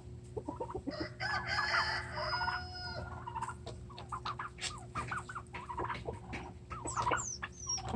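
Farm poultry calling: young Bourbon Red turkeys gobbling among clucking chickens. A long drawn-out call starts about a second in, followed by scattered short calls and chirps.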